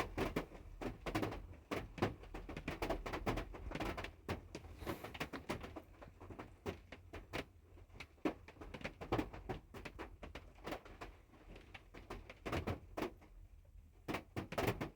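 Irregular light clicks and knocks, the sound of handling oil bottles and a funnel while engine oil is being poured into the engine.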